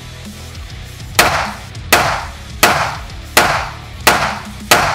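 Walther CCP 9 mm pistol fired six times in quick, even succession, about one and a half shots a second, starting about a second in. Each shot has a short echoing tail. Music runs underneath at first.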